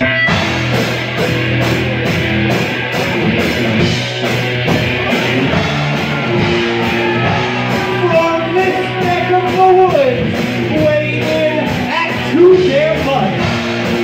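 Loud rock song with a singer and a steady drumbeat, starting abruptly, played over a venue sound system.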